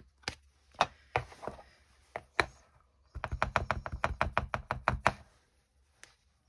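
A few clicks as a plastic VersaMark ink pad case is handled and opened. Then the ink pad is dabbed rapidly against a clear acrylic stamp, a quick run of soft taps, about ten a second, for two seconds.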